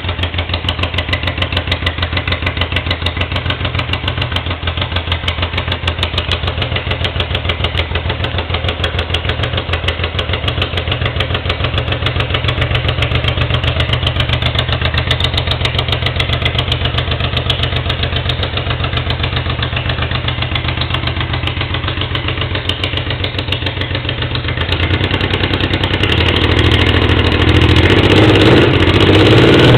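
Honda Africa Twin XRV750's V-twin engine running without a silencer, idling with a steady, rapid exhaust pulse. About 25 seconds in the revs rise and it gets louder.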